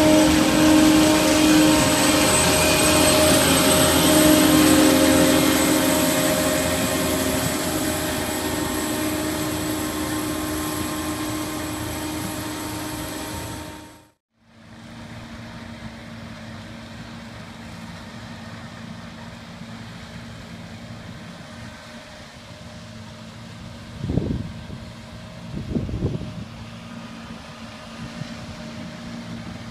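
A ROPA self-propelled sugar beet harvester running close by: its engine and beet elevator conveyors make a loud, steady machine noise with several steady whines, which fades out about halfway. After that comes the quieter, steady sound of a beet harvester working farther off across the field, with two short louder sounds near the end.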